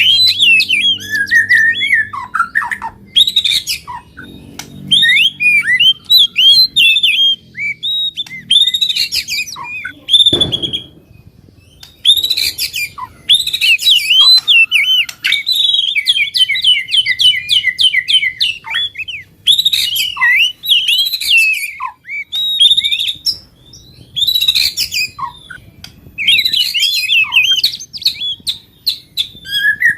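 Songbirds singing a fast, varied song of chirps, trills and whistles, delivered in bursts with short pauses between them. A brief low thump sounds about ten seconds in.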